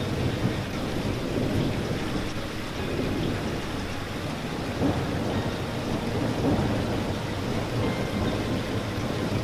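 Steady rain falling, an even hiss with a deep rumble underneath and no single drops or strokes standing out.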